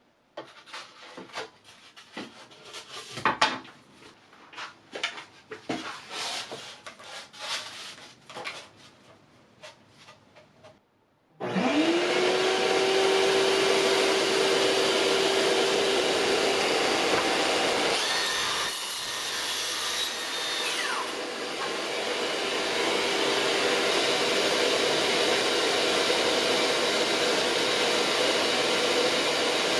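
Scattered knocks and clicks of wood and tool handling, then about eleven seconds in a power-tool motor spins up with a rising whine and runs steadily, its sound dipping and shifting slightly partway through.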